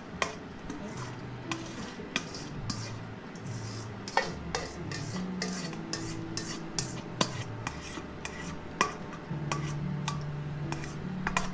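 A spoon scraping and tapping around the inside of a stainless steel mixing bowl as rice and peas are emptied into a rice cooker pot. The short scrapes and clicks repeat about two or three times a second.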